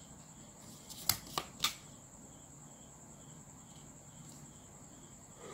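Three quick light clicks and taps about a second in as a flexible plastic ruler is moved and set down on paper, over a faint steady high-pitched whine.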